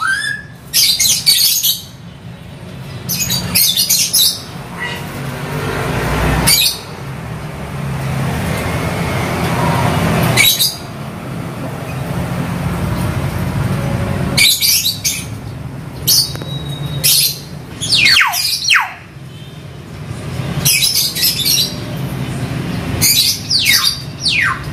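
Common hill myna (beo) calling in loud short squawks and whistles, a few of them falling in pitch, coming thicker in the second half. Cries only, not yet imitating speech.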